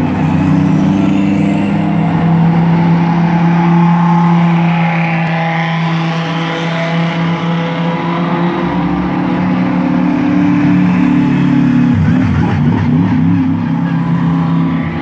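GT3 race car engines running at a steady low speed down the pit lane, a constant, unchanging engine note. About twelve seconds in, the note wavers and shifts as a different car comes by.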